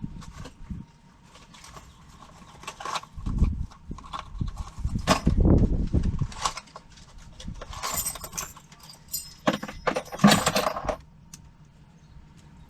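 Clicks, knocks and metallic rattling from a locksmith handling a door lock cylinder and his tools, with a few dull thumps partway through and two bursts of jingling metal near the end.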